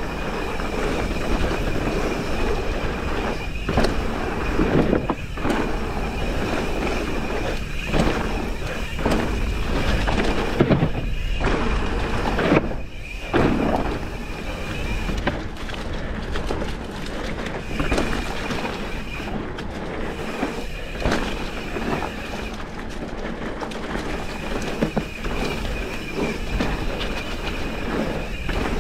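Specialized Enduro mountain bike descending dirt singletrack: tyres rolling over dirt and roots, the bike rattling and knocking over bumps, with wind rumbling on the helmet-mounted microphone. A high steady buzz comes and goes, typical of the rear hub while coasting.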